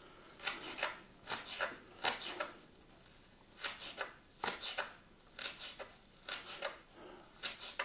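Kitchen knife chopping food on a cutting board: quick strokes in groups of two or three, with short pauses between the groups.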